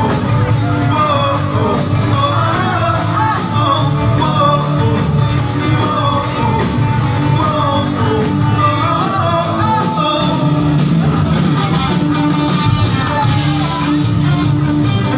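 Live rock band playing, with electric guitars, drums and a singer over a steady drum beat.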